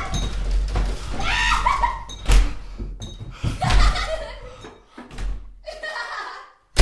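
A person laughing in several short bursts, with a few knocks between them, then one loud bang right at the end that cuts to silence.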